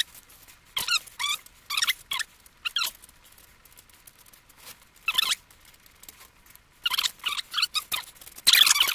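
Felt-tip marker squeaking across paper in short drawing strokes, with pauses between. The strokes come in a handful early on, one alone midway, then more closely together and busier near the end.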